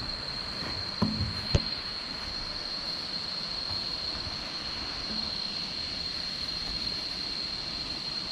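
Steady high-pitched drone of insects, with a couple of short knocks about a second and a half in.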